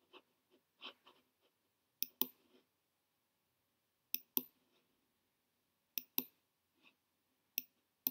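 Computer mouse button clicking in quick press-and-release pairs: four pairs about two seconds apart, with a few softer clicks in the first second and a half.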